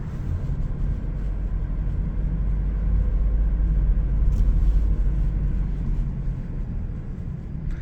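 A car driving along, with a steady low rumble of road and engine noise that swells slightly around the middle.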